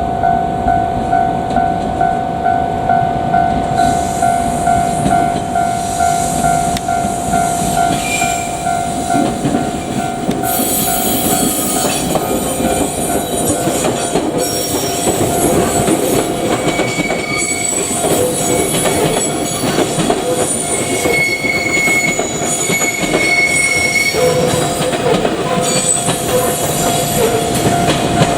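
A Japanese level-crossing warning bell dings steadily about twice a second. Meanwhile a JR Kyushu 817 series electric train approaches and runs over the crossing, its rolling noise building strongly from about ten seconds in, with high thin tones coming and going over it.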